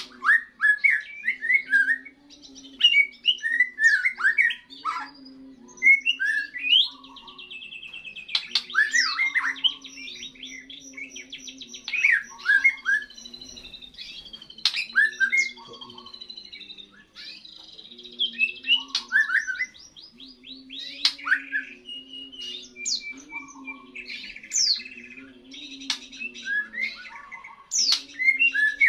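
Young white-rumped shama singing its first song after its molt: a varied, nearly unbroken run of short whistled chirps, sweeping notes and rapid buzzy trills.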